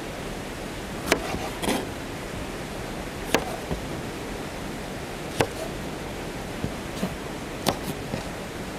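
Sharp, irregular knocks, about seven in all, spaced a second or two apart over a steady hiss.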